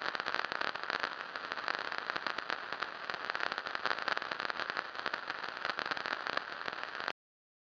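Steady, dense crackling over hiss, an old-film-style surface-noise effect, cutting off suddenly near the end.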